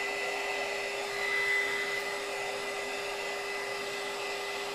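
Small handheld electric heat gun running steadily, blowing hot air to shrink a grip sleeve onto a rod handle: a constant rush of air with a steady low hum and a high whine.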